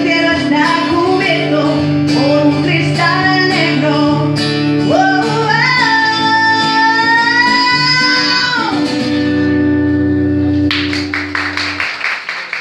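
Live female vocal with acoustic guitar: the singer holds a long final note that falls away, the guitar rings out on a last chord, and applause breaks out near the end.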